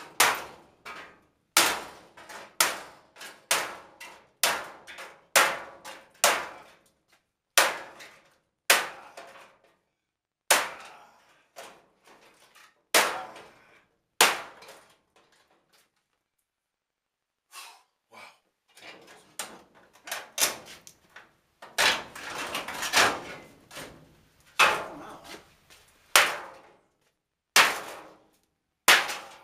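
Hammer blows on an old furnace's sheet-metal casing during demolition: sharp metallic bangs that ring briefly, coming irregularly about once a second, with a pause of about two seconds midway and a denser run of blows later on.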